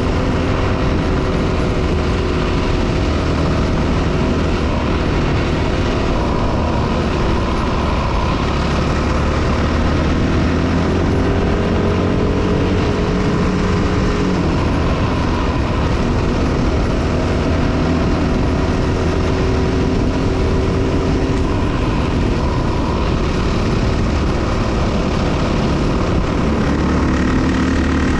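Dirt bike engine running under way, its pitch rising and falling gently with the throttle, over a steady rushing noise.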